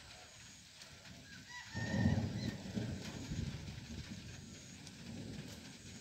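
Spotted dove cooing: low, breathy coos begin about two seconds in, loudest at first, then trail off in weaker repeats.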